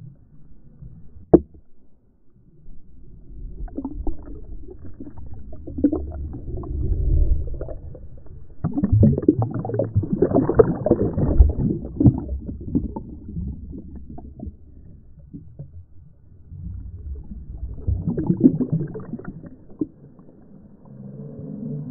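Seawater sloshing and washing over a waterproof camera housing in shallow surf, heard muffled through the housing. It swells and ebbs in surges, loudest around the middle and again near the end, with a sharp knock against the housing just over a second in.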